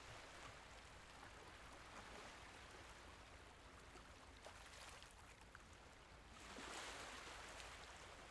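Faint Mediterranean Sea water washing and lapping, with small trickling clicks and one wave swelling louder about six and a half seconds in.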